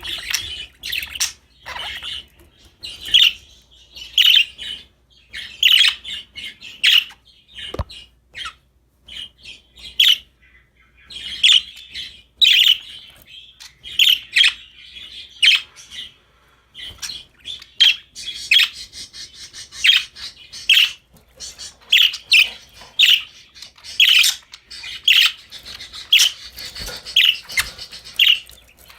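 Budgerigars chirping in quick, short calls with occasional squawks. Past the middle the calls run together into denser chattering.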